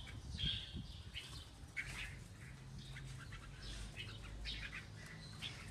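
A flock of red-whiskered bulbuls chirping and calling, many short calls overlapping several times a second.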